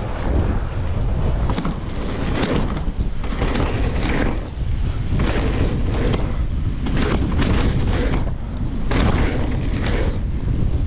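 Mountain bike riding down a wet dirt track, heard through a body-mounted camera: wind rushing over the microphone with the rumble and rattle of the bike over the track, and frequent short surges.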